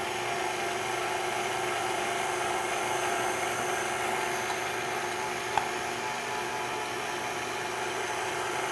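KitchenAid stand mixer's motor running steadily with a whine, its flat beater mixing flour into pistachio biscotti dough. A single sharp click a little past halfway.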